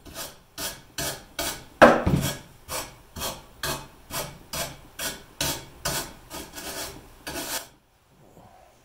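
Fiberglass body panel being abraded by hand with rhythmic back-and-forth scraping strokes, about three a second, stopping near the end. This is shaping the cracked fiberglass before new glass and filler go on.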